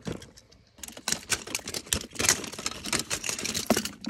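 Plastic ball-pit balls and small toy trains clattering and rattling against each other as a hand rummages through the pile, a brief burst at the start and then a dense run of rapid clicks from about a second in.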